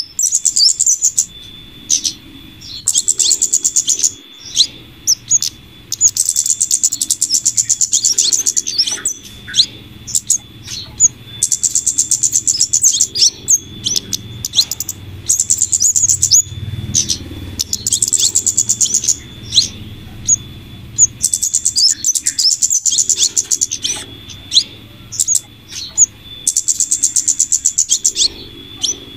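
Bird-trapping lure recording of flowerpecker (kemade/cabe-cabean) calls combined with female scarlet minivet calls: high, rapid trills repeating every couple of seconds, with sharp single chirps between them.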